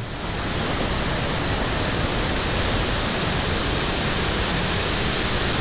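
Victoria Falls: the Zambezi River's water plunging into the gorge, heard as a steady, even rush of falling water.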